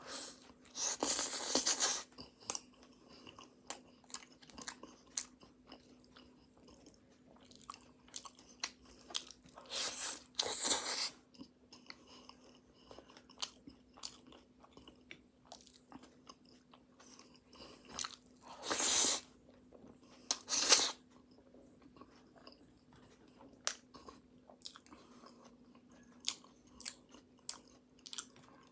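Close-up chewing and biting of flaky pastry: many small wet mouth clicks, with louder crunching bites about a second in, around the middle, and twice more about two-thirds of the way through. A faint steady hum sits underneath.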